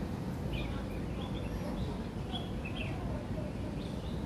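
Short, high-pitched animal chirps, about half a dozen scattered over a few seconds, over a steady low background rumble.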